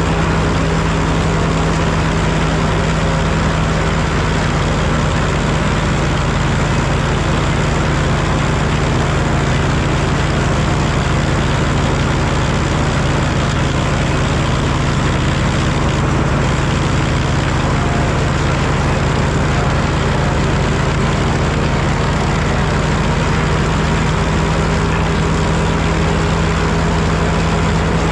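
Super W-6 tractor engine running steadily, powering an old S.A. Woods wood planer, with the planer's machinery turning. The sound is an even, unbroken machine drone with a strong low hum.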